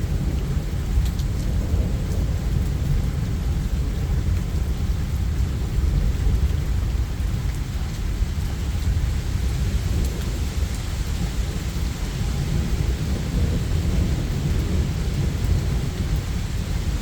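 Steady heavy rain with a continuous low rumble of thunder under it.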